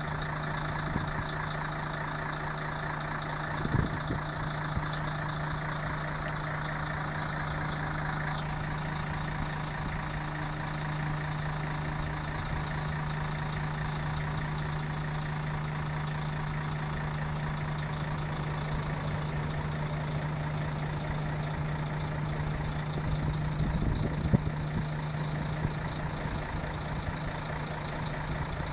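Heavy machinery of a gantry crane running with a steady low hum as the crane grips and lifts a semi-trailer. The hum's higher hiss drops away about eight seconds in, and there is a knock about four seconds in and a louder one around twenty-four seconds.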